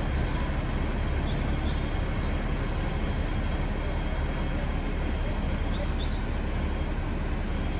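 Hong Kong double-decker tram running along its street rails: a steady low rumble of wheels on track and traction motors.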